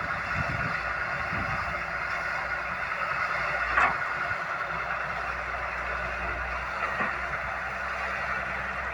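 A machine running steadily, with a brief louder scrape or clank about four seconds in and a smaller one near seven seconds.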